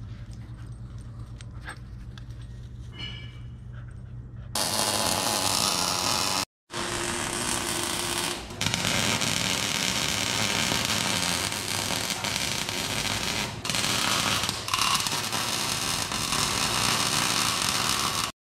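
Wire-feed (MIG) welder's arc crackling and hissing on steel, loud and steady in long runs broken by a short cut to silence. It follows a quieter first four seconds of low steady hum.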